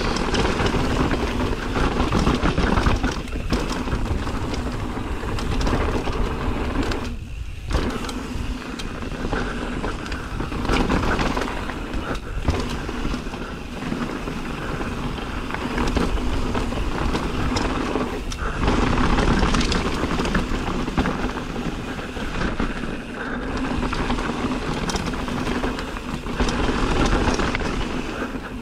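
Mountain bike riding down a rough trail: continuous rushing and rumbling noise of tyres and bike rattling over the ground, with wind on the microphone. The noise drops off briefly twice, about seven and eighteen seconds in.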